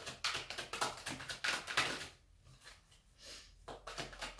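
A deck of tarot cards being shuffled by hand, overhand style, the cards flicking and slapping against each other in quick clusters of soft clicks, with a short pause a little past halfway.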